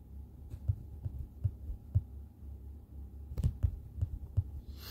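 A low steady hum with soft, irregular low thumps about twice a second and a few faint clicks.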